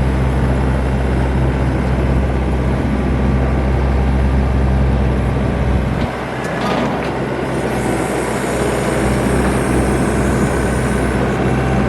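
Kubota SVL90 compact track loader's diesel engine running steadily; about halfway through, its low note drops and the sound changes, with a faint high hiss added for a few seconds.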